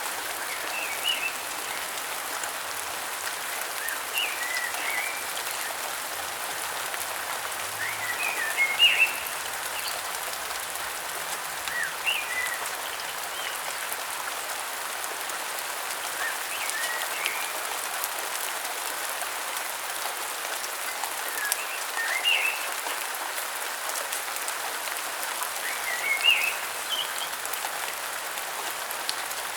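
Steady rain falling, with a bird giving short chirping calls every few seconds over it.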